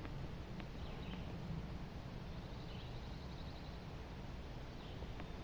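Steady low outdoor rumble with a few faint, short bird chirps and a brief trill higher up.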